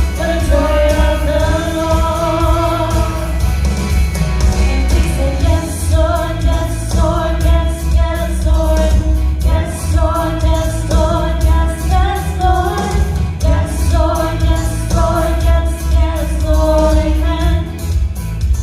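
Worship song: a sung melody over full band backing with a strong bass.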